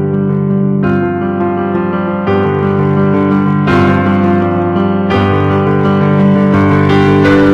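Piano or keyboard music played as slow, sustained chords, the harmony changing about every second and a half.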